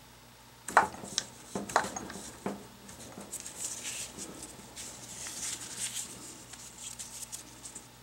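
Metal tool clinking and scraping against the hydraulic pump casing as the shaft seal is worked out of its bore: four sharp clicks in the first two and a half seconds, then lighter scraping.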